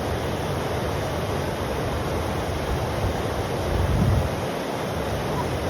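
Steady rush of river water, with wind buffeting the microphone in a low rumble that swells about four seconds in.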